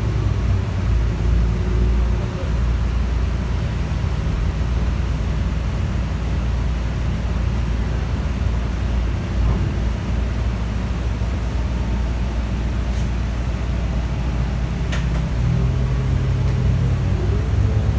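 Cabin sound of a New Flyer Xcelsior XN40 bus under way: the Cummins L9N natural-gas engine and drivetrain give a steady low rumble over road noise. A pitch rises near the end, and a couple of faint rattling clicks come in the second half.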